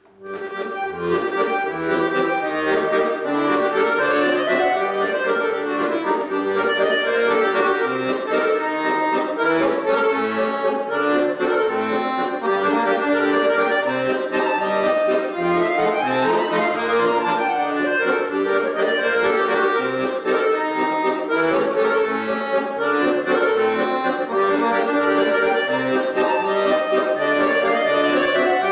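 Accordion playing a lively tune, starting abruptly, with quick runs of notes sweeping up and down over low bass notes.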